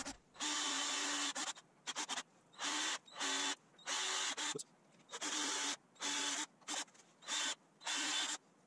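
Black+Decker power drill run in about ten short bursts, each under a second, the motor starting and stopping as the bit bores part way into the wooden frame through the bolt holes of a steel bracket.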